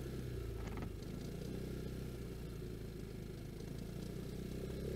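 Vespa GTS scooter's single-cylinder four-stroke engine running at low, steady revs on the move; the engine note dips slightly just after the start, then holds steady.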